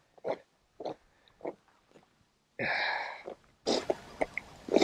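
A man's short, noisy throat sound a little after halfway, among a few faint short sounds. Near the end come a few small clicks.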